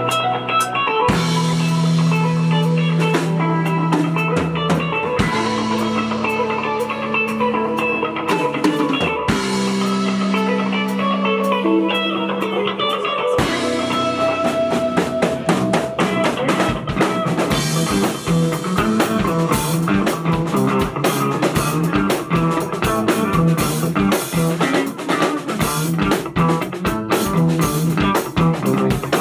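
A band playing an instrumental passage: guitar over long held low notes with only scattered drum hits, until the full drum kit comes in about halfway and the rhythm turns busy and driving.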